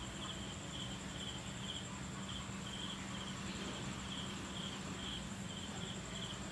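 Night insects chirping: short cricket-like chirps repeating about twice a second over a steady, high-pitched insect trill, with a low steady hum beneath.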